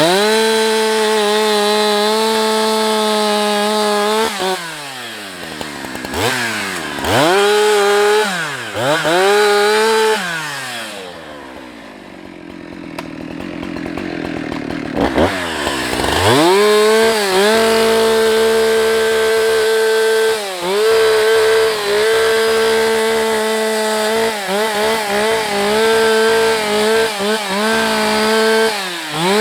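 Husqvarna 365 two-stroke chainsaw running at full throttle, cutting into a tree. It drops back to idle and revs up again several times, idles more quietly for a few seconds about a third of the way through, then goes back to a long full-throttle cut with brief dips in pitch.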